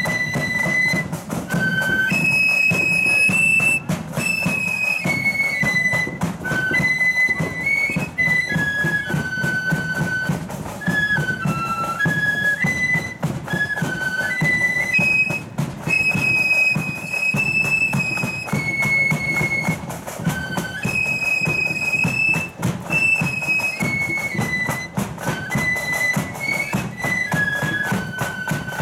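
Marching flute band: many flutes playing a lively melody in unison, with drums beating underneath throughout.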